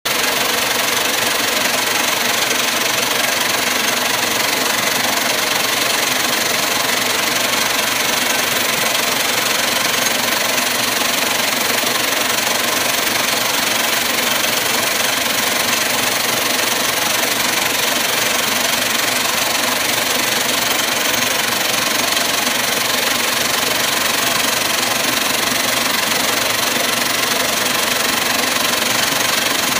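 Vibratory bowl tumbler shaking wet brass rifle cases and cleaning media across its steel mesh separating screen: a loud, steady metallic rattle and hiss with no breaks.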